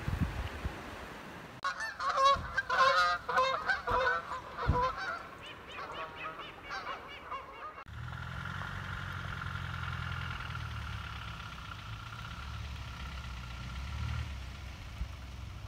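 Geese honking, a rapid run of overlapping calls that stops abruptly; after that a vehicle engine hums steadily.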